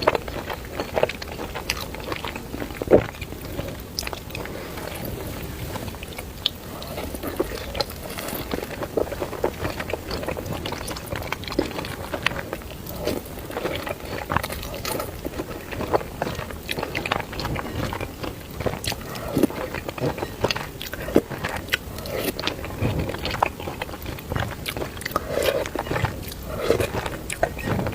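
A person chewing and biting mouthfuls of spicy noodles close to the microphone, with irregular small wet clicks and mouth sounds.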